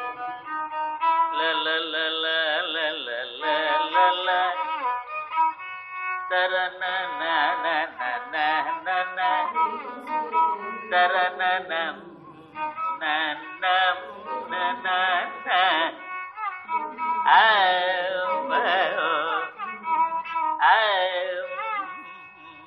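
Carnatic classical music in raga Bahudari: a male voice singing melodic phrases with violin accompaniment. The recording has little treble.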